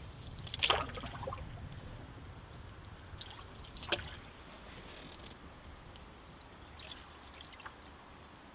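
Light water splashes and drips at the side of a canoe, with a cluster of louder splashes about a second in, a sharp single drip or plip near four seconds, and a few fainter ones later.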